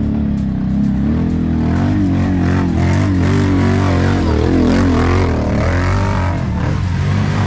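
Quad bike (ATV) engines running under load on a dirt hill climb, the revs rising and falling over a steady low engine drone.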